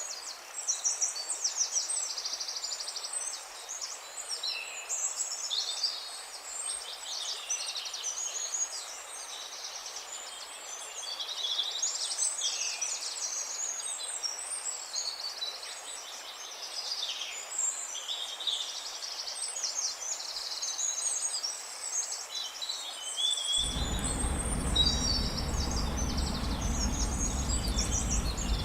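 A dawn-chorus-like mix of many songbirds singing at once, with overlapping chirps, whistles and rapid trills. About twenty-three seconds in, a steady low noise joins suddenly under the birdsong.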